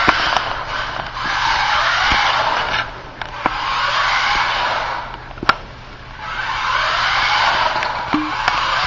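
Xmods micro RC car's tyres sliding on a concrete garage floor as it drifts, a hiss that swells and fades three times, with a sharp click a little past halfway.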